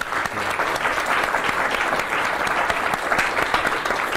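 Audience applauding steadily: many hands clapping together in a dense, sustained wash.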